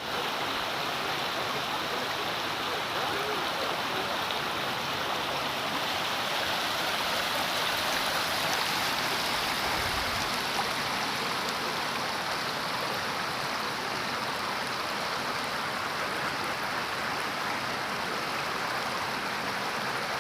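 Waterfall: a steady rush of falling water, without a break.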